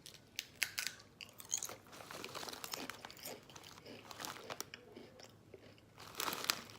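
Crunching and chewing Lay's Caribbean Onion & Balsamic Vinegar potato chips: irregular sharp crackly crunches, with a louder crunch near the end.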